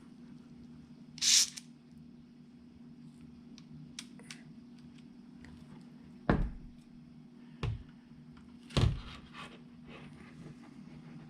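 One short hiss of CorrosionX aerosol spray about a second in, then three knocks from handling, at about six, seven and a half and nine seconds.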